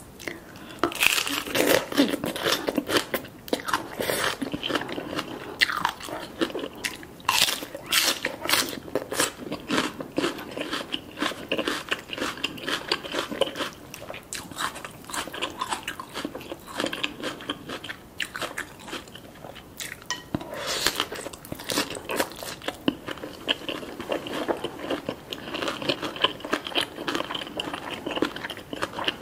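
Close-miked eating sounds: a person biting into and chewing crispy fried chicken skin and shredded green papaya salad, with dense, sharp crunches. The crunching is thickest in the first ten seconds and again about twenty seconds in, with softer chewing between.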